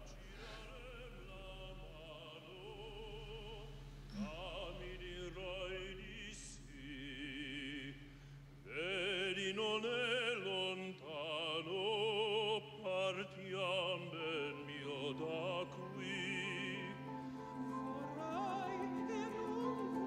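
Operatic singing with a wide vibrato over orchestral accompaniment, growing fuller and louder about nine seconds in.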